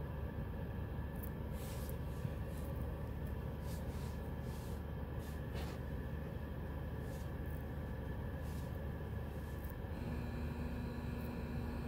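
Car wash tunnel equipment heard muffled from inside the car: a steady low rumble with faint, brief hisses, and a steady hum that comes in near the end.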